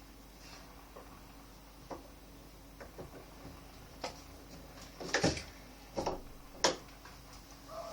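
A few short knocks and clicks over a faint steady hum. They are small at first, and the three loudest come about five to seven seconds in.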